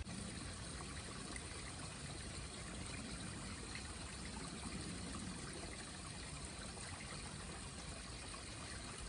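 Mountain stream water trickling and flowing between and beneath ice in a frozen valley, a steady, even sound.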